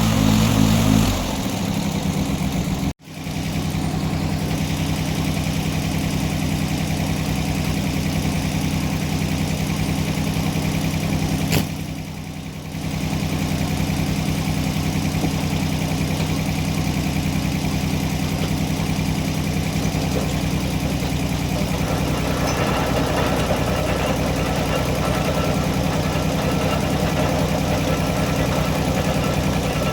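Engine dropping from higher revs to a steady idle about a second in, then running on at idle.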